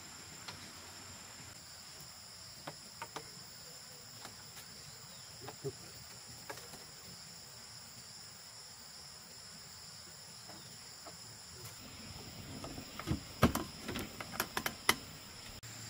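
Steady high-pitched drone of insects, with scattered light clicks of bamboo strips being handled and laid on a slatted bamboo floor. Near the end comes a cluster of louder sharp knocks as bamboo pieces are knocked into place, a flat bamboo slat going into a bamboo post.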